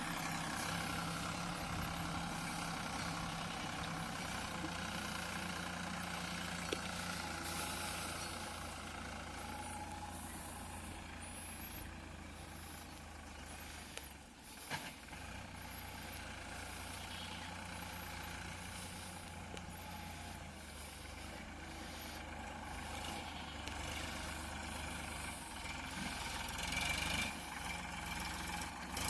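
Heavy diesel machinery engine running steadily, with a brief dip and a sharp knock about halfway through.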